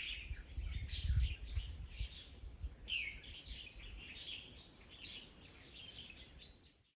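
Small wild birds chirping, many short high calls in quick succession that grow fainter and cut out just before the end, over a low rumble that is strongest about a second in.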